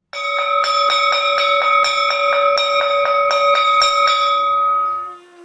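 Metal school bell struck repeatedly, about three strokes a second, for about four seconds, then left ringing out and fading.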